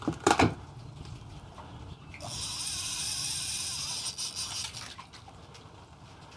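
A spinning reel's drag giving line in a high hissing buzz for about two and a half seconds as a hooked fish runs, starting about two seconds in, after a short sharp sound at the very start.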